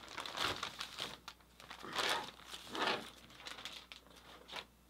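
Clear plastic packaging crinkling and rustling in several irregular bursts as it is opened and handled.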